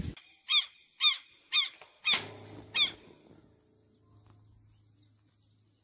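Southern lapwing (quero-quero) giving five short, sharp calls in quick succession, about two a second: the call of a lapwing wary of people close by.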